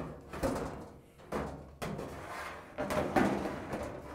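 A steel dryer drum bumping and scraping against the dryer's sheet-metal cabinet as it is guided back into place: several sudden metal clunks, with rubbing between them.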